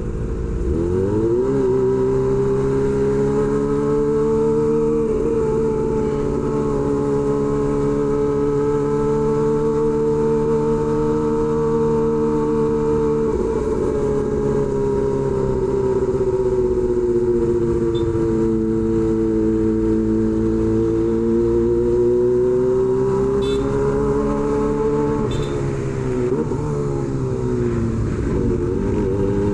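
Kawasaki Ninja ZX-25R's 250 cc inline-four running through an SC-Project H2 exhaust while being ridden, its note rising and falling gently with the throttle. The pitch changes quickly about a second in and again near the end.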